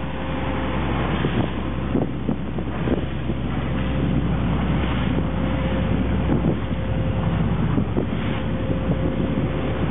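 Engine of a wooden gulet running steadily under way, a low drone, with wind buffeting the microphone.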